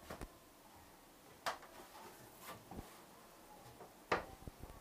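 A few separate footfalls and knocks on the wooden floor inside a small locomotive cab, the loudest near the end.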